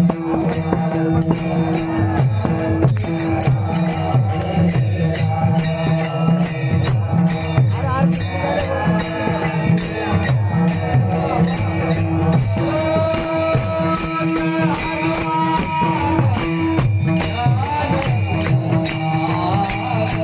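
Indian devotional bhajan music: a steady drone under a running drum beat and continual jingling metal percussion, with a melody line that bends and glides over it.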